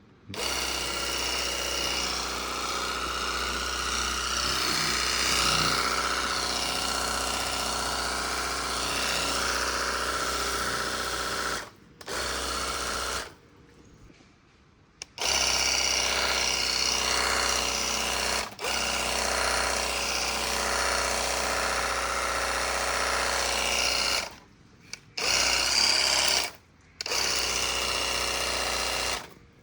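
Portable car pressure washer's electric pump running and spraying water, shutting off and restarting several times, with a longer pause about 13 seconds in.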